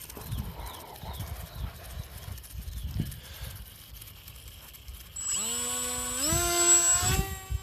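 Tiny 0905 brushless motor with a 3030 propeller spinning up to a high whine, its pitch rising in two steps as the throttle is raised, then dropping away near the end. Before it, a few light knocks and clicks of handling.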